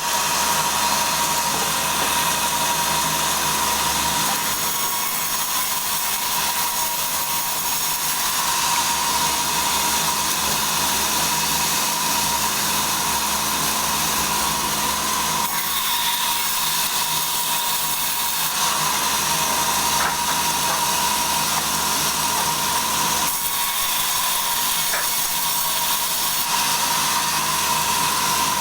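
Sawmill saw cutting through a log, running steadily without a break, with a constant tone held under the cutting noise.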